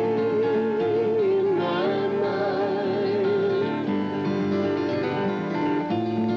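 Pop-folk vocal group singing with acoustic guitar accompaniment. The voices hold long notes with vibrato: one sustained note stepping down once about a second and a half in, with other voices singing above it.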